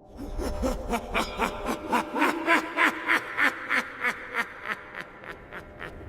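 Horror-style ghost laugh: a voice laughing in a long run of rhythmic bursts, about three a second. It grows to its loudest around two to three seconds in, then trails off. A low rumble and a steady drone run beneath it.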